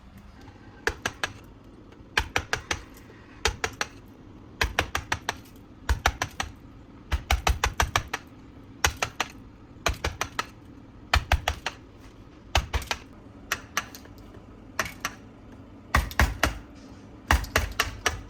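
Groups of quick, hard taps, three to six at a time, repeating about every second or so: a kitchen utensil striking something hard.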